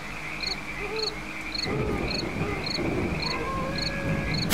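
Night ambience: crickets chirping in a regular pulse a little over twice a second. Frogs start calling nearly two seconds in, and the sound grows a little louder toward the end.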